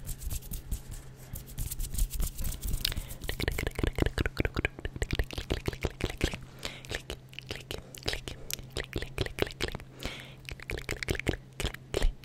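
Fast, close-miked ASMR hand sounds and mouth sounds: a dense run of quick clicks and crackles, many a second, with short hissy stretches about three and ten seconds in. A steady low hum sits underneath.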